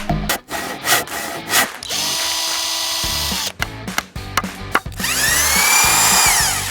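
Power drill running in two bursts, the second spinning up, holding and winding down, with clicks and knocks in between.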